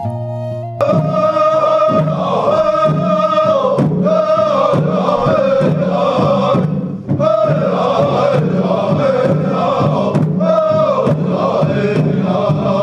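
Soundtrack music: a flute melody cuts off about a second in and gives way to a group of male voices chanting in unison over a steady beat, in the style of a Native American song.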